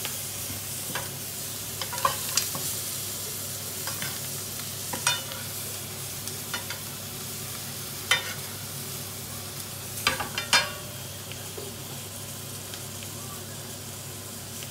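Butter sizzling in a hot frying pan around halved cauliflower, while a spoon repeatedly knocks and scrapes against the pan as the butter is spooned over to baste it. The knocks come irregularly, the loudest about eight and ten seconds in.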